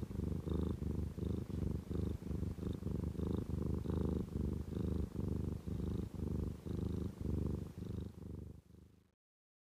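Calico cat purring in an even rhythm of about three pulses a second, fading out near the end and then cutting off.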